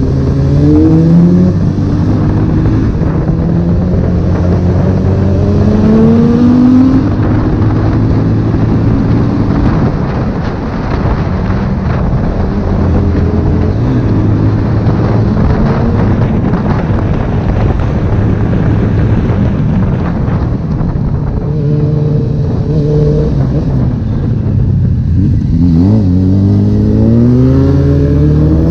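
Honda CB1000R inline-four engine under way, rising in pitch as it accelerates near the start, again around six seconds in, and near the end, with a steady rush of wind and road noise underneath.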